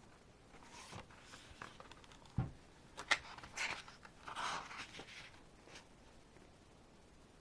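Pages of a K-pop album photobook being handled and turned: a series of soft paper rustles and clicks, with a dull thump about two and a half seconds in and a sharp click just after three seconds.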